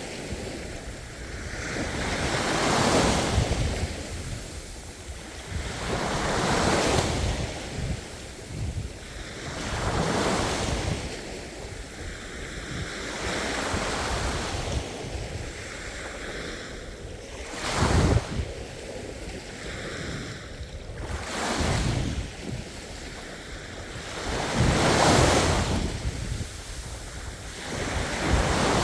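Ocean waves breaking and washing ashore, surging and fading about every three to four seconds, with one sharper crash about 18 seconds in.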